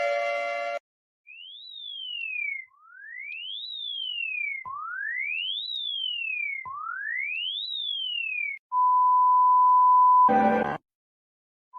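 Electronic emergency-alert tones. A siren-like tone with many overtones cuts off just under a second in. Then a pure tone sweeps up and back down four times, each sweep a quick rise and a slower fall, about two seconds apart. Then comes a steady high beep, which ends in a short, loud, harsh burst.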